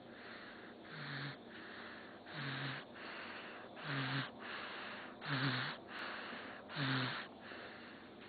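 A person snoring: about five snores, one every second and a half, each a low buzz with a rush of breath, the later ones louder.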